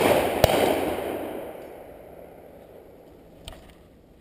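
Two shotgun shots about half a second apart, the first right at the start, their echo rolling away and dying out over about two seconds. A faint click comes about three and a half seconds in.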